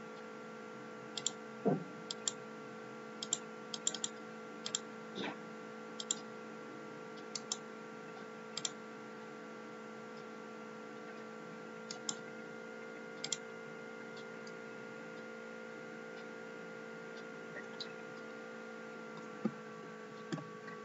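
Scattered sharp clicks of a computer mouse and keyboard, about a dozen, mostly in the first half with a couple more near the end, over a steady electrical hum made of several constant tones.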